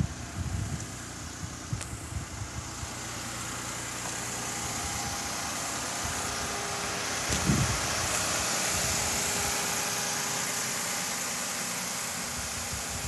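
Nissan Dayz Roox's 660 cc three-cylinder kei-car engine idling, with the air-conditioning blower rushing; the hiss builds over several seconds and eases near the end. A single low knock about seven and a half seconds in.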